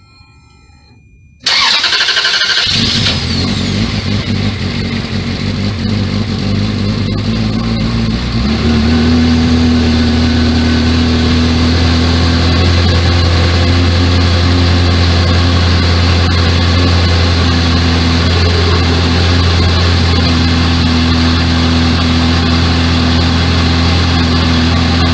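Ferrari 360 Modena's 3.6-litre V8 cranked by the starter and catching about a second and a half in, running at a raised idle, then settling to a steady, lower idle about eight seconds in.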